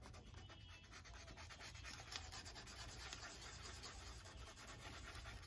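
Faint rubbing of a felt-tip marker on paper as boxes on a printed chart are coloured in.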